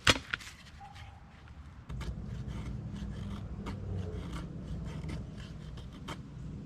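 A sharp knock of wood at the start, then a knife blade scraping and rubbing on wood with scattered small clicks, over a low steady rumble that sets in about two seconds in.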